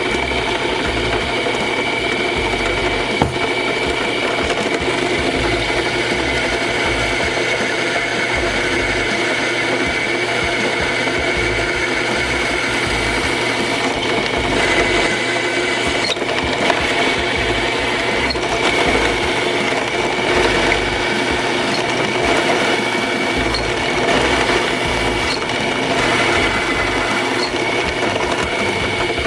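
Electric power tool running steadily, its motor giving off a continuous high whine.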